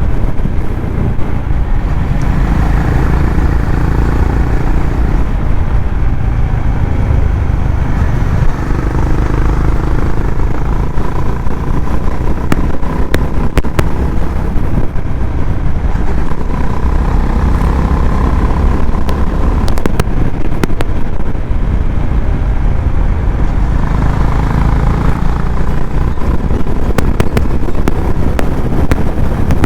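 Honda CB350RS's 348 cc air-cooled single-cylinder engine and exhaust running steadily under way, heard from the rider's seat. There are scattered sharp clicks in the second half.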